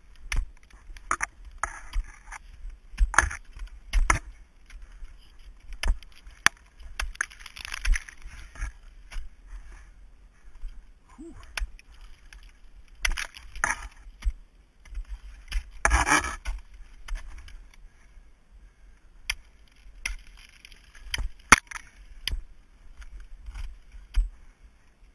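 Ice axes and crampon points striking into ice, irregular sharp chops and crunches as the climber swings the tools and kicks in, some strikes longer and crunchier than others.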